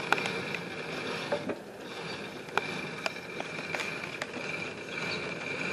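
Microfilm reader running with a steady high whine as the film winds, with scattered sharp clicks from the machine's controls and mechanism.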